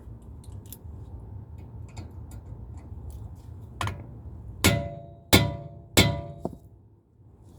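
Hammer blows on a hand impact driver set in a seized Phillips rotor-retaining screw, to break it loose. A lighter tap, then three hard metallic strikes about two-thirds of a second apart that ring briefly, and a last lighter tap.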